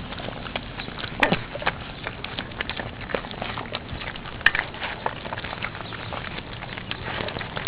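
Four-week-old pitbull puppies moving about, with an irregular patter of small paws and claws and a few sharper clicks and squeaks.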